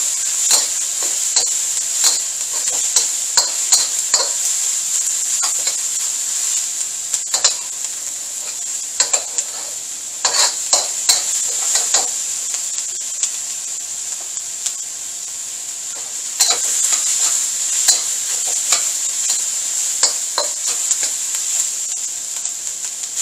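Diced peppers, onion and garlic sizzling steadily in a hot wok while being stir-fried, the metal wok spatula scraping and clacking against the pan in irregular clusters, with fewer clacks for a few seconds a little past the middle.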